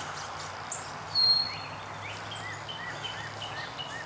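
Several wild songbirds singing at once. About a second in there is one high, steady whistle, the loudest sound. Through the second half a bird repeats quick short notes, about four a second.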